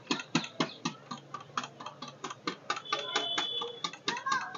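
Wheat flour being sifted through a round hand sieve over a brass parat: quick, even taps as the sieve is knocked back and forth, about four or five a second.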